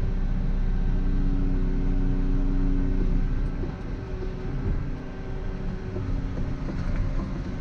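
Volvo EC140EL excavator's diesel engine running steadily under digging work, with a steady tone that stops about three seconds in, after which it goes slightly quieter.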